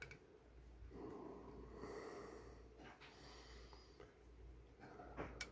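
Quiet close-up handling as an Allen key works the screws of a steel scope rail on a rifle receiver: faint breathing through the nose, a light click at the start and a sharp metallic click near the end.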